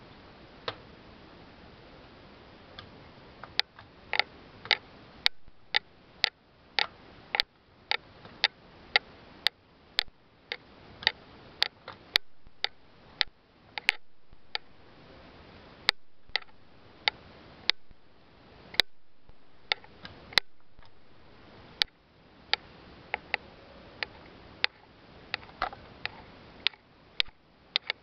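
Sharp mechanical clicks at an irregular pace of roughly one or two a second, from the drive mechanism of a kinetic manatee sculpture built from steel pipe and transmission parts, over a faint hiss. A single click comes early, and the steady clicking sets in a few seconds later, with short pauses along the way.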